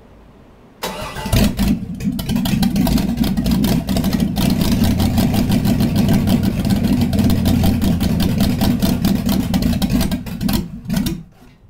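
Chevy 350 V8 with a gear-drive timing set, run on an engine stand: it catches about a second in, runs steadily with rapid firing pulses for about ten seconds, then stumbles and cuts out near the end. The owner says its carburettor has a bad power valve.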